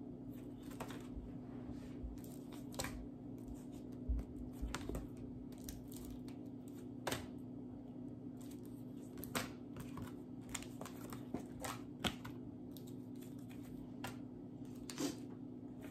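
Stiff cardboard flash cards being handled and swapped in the hands, giving short papery clicks and rustles every second or so, over a steady low hum.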